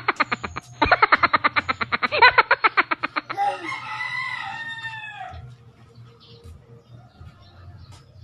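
Background music with a fast, regular beat that stops about three seconds in, followed by a rooster crowing once, a drawn-out call that falls in pitch at its end.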